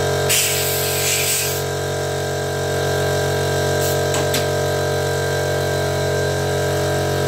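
Air compressor running steadily, with a blast of compressed air hissing through the powder coating gun about half a second in that lasts about a second, then two short puffs of air near the four-second mark.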